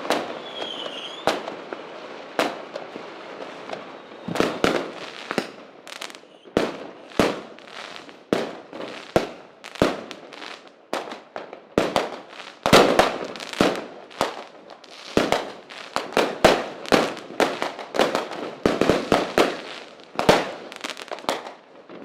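Fireworks going off: an irregular string of sharp bangs and crackling pops. They are spaced out at first and come thick and fast, several a second, in the second half. A brief whistling tone sounds about a second in.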